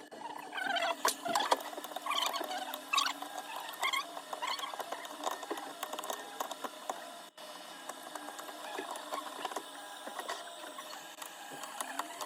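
Close-up handling of an iPhone during a back-glass repair: short high squeaks that bend up and down, thickest in the first few seconds, with many small clicks and taps throughout.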